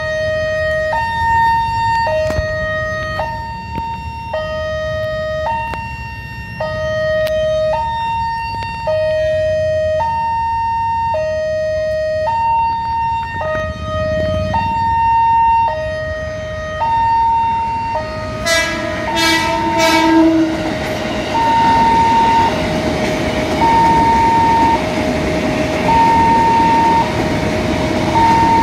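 Wantech railway level-crossing alarm sounding its two-tone warning, a high and a low tone swapping about once a second. About two-thirds of the way through, a train horn gives a few short blasts. An electric commuter train then passes through the crossing under the continuing alarm.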